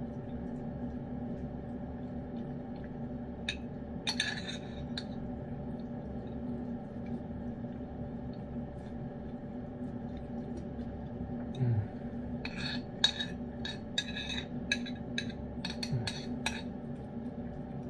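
A spoon clinking and scraping against a ceramic bowl of wet cat food as a cat eats from it, mixed with the cat's licking and chewing. The sounds come in short clusters, a few about four seconds in and a quicker run of a dozen near the end, over a steady low hum.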